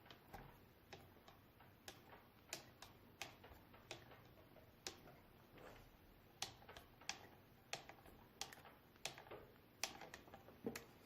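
Faint, irregular clicks, about one or two a second, from a hand driver turning small M3 button-head screws into an RC car's plastic bulkhead.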